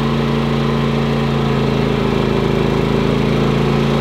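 Predator 9500 inverter generator's gasoline engine running at a steady, even pitch while powering electric space heaters in a load test.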